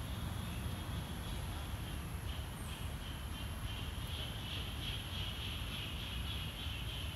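Outdoor ambience: a steady high-pitched insect drone, swelling a little about halfway through, over a low rumble.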